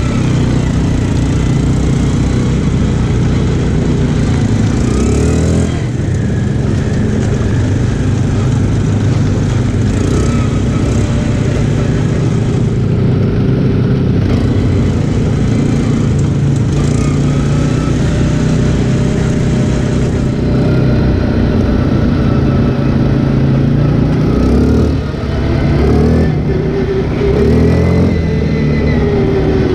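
ATV engine running under way on a dirt trail, heard close up from on board, its pitch rising and falling as the throttle opens and closes, with a few quick revs near the end.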